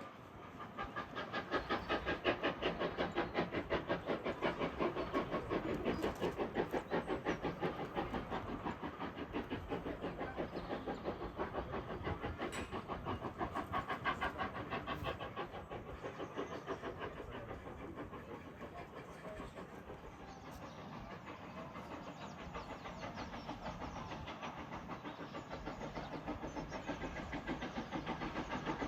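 A railway train running, with a fast, steady rhythm of beats. It builds about a second in, eases off around two-thirds of the way through and builds again near the end.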